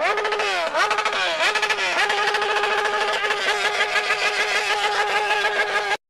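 Motorcycle engine revved in quick blips, its pitch jumping up and falling back several times, then held at a steady high speed before cutting off abruptly.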